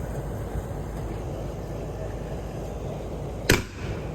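Steady outdoor background rumble, then about three and a half seconds in a single sharp, loud bang from a consumer aerial firework ('big boomer') going off.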